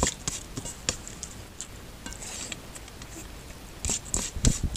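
Bare fingers mixing oily rice and curry on a stainless steel plate: wet squishing with repeated short scrapes and clicks of fingertips on the metal, loudest near the end.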